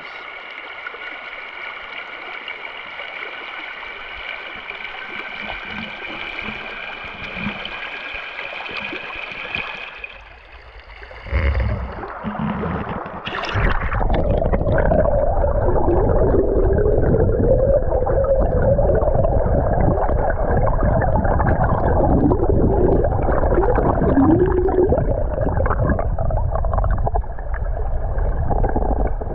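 Yamaha Ténéré 700 parallel-twin motorcycle on a dirt road, with engine and wind on the rider's microphone. It runs quietly at first, a couple of knocks come about 11 and 13 seconds in, and then it gets much louder, a rumble with a wavering engine pitch as the bike picks up speed.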